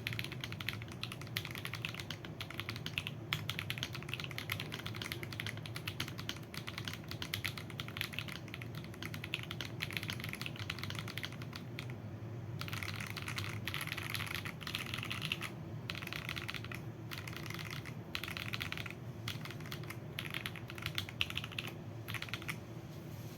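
Continuous typing on a mechanical keyboard with lubed Akko Lavender Purple tactile switches, PBT keycaps and a foam-filled Fuhlen H87s board: a dense run of keystroke clacks. It pauses briefly about halfway through and a few times near the end.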